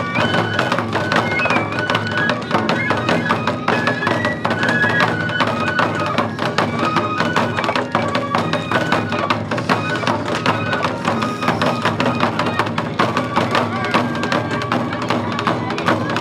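Japanese festival music for a lion dance: a bamboo flute plays a melody in held notes that step up and down, over fast, steady drumming.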